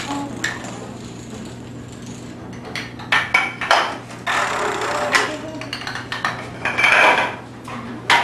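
Homemade dominoes toppling in a chain reaction: a rapid clatter of tiles knocking into one another, swelling into louder dense rattles a few times as bigger sections fall.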